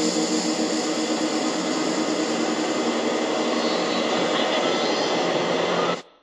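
Dense, noisy wash of distorted sound closing a shoegaze rock track, steady in level, then cutting off suddenly about six seconds in.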